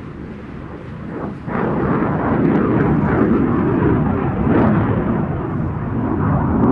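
MiG-21 fighter's jet engine in afterburner, a rumbling roar that swells abruptly about a second and a half in to a loud, crackling roar.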